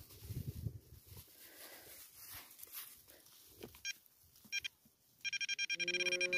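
Metal detector signalling a target: two short electronic beeps about four seconds in, then a loud, fast-pulsing high tone that runs on, with a lower tone joining shortly after. Before the beeps there is only faint rustling.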